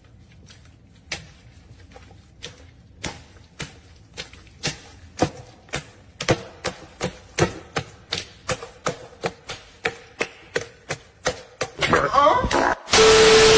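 A series of sharp, dry clicks, a few at a time at first, then quickening to about three a second. Near the end a woman shrieks, cut off by a sudden, very loud blaring noise.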